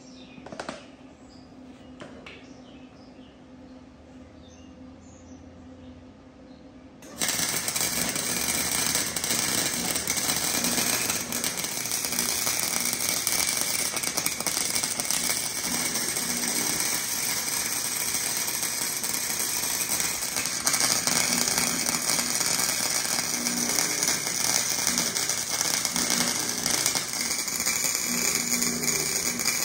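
A couple of light clicks, then about seven seconds in an arc welder strikes up and runs continuously with a steady, loud crackle as weld beads are laid on the steel steering joint.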